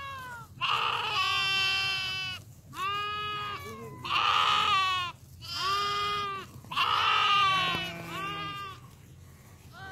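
A flock of sheep bleating, about six separate calls one after another, each lasting around a second, with a wavering pitch.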